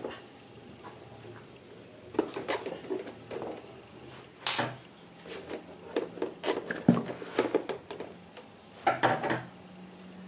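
A plastic-cased Eaton Powerware 5110 UPS being handled and turned onto its side, propped on a hard zip case: a few scattered knocks, bumps and scrapes of the casing.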